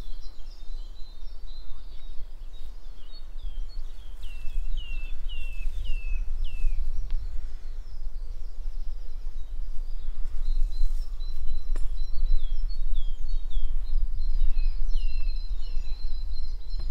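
Wild birds singing: runs of short, falling whistled notes, several in a row, with other chirps around them, over a steady low rumble. A single sharp click about two-thirds of the way through.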